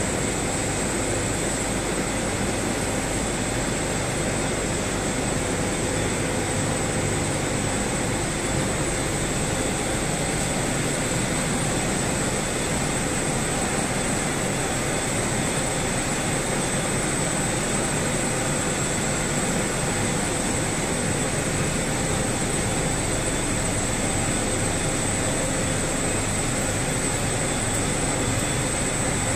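Machinery of a zircon ore separating plant running: a steady mechanical din with a constant high whine over it.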